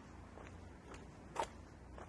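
Faint footsteps of a person walking, about two steps a second, with one louder step near the middle.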